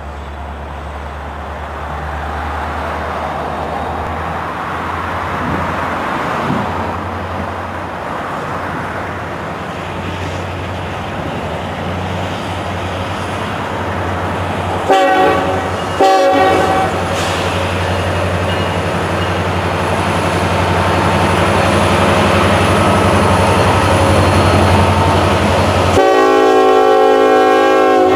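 Norfolk Southern diesel locomotives approach at the head of a double-stack container train, their engines running with a steady low drone that grows louder as they near. The horn gives two short blasts about halfway through, then a longer blast near the end.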